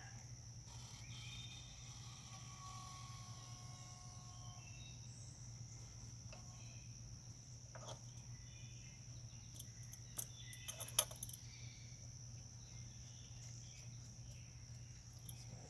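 A few sharp metallic clicks about ten to eleven seconds in, from a wrench working on a fuel line fitting. Under them runs a faint, steady high-pitched whine and a low hum.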